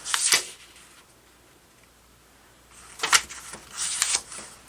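Paper instruction manual being handled and its pages turned: short rustles at the start and again about three seconds in, with a quiet stretch between.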